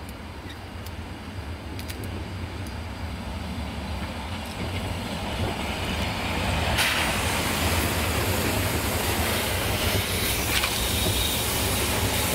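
750 mm narrow-gauge steam locomotive 99 4632 and its train of wooden coaches running past, growing louder as it approaches. The hiss gets louder at about the halfway point as the locomotive draws level, and then the coaches roll by with clickety-clack over the rails.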